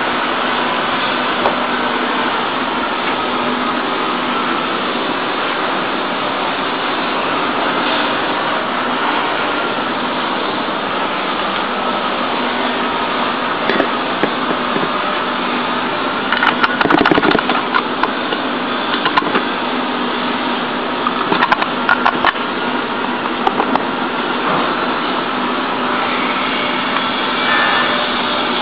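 Steady machine hum, with a few clusters of short knocks and clicks in the middle.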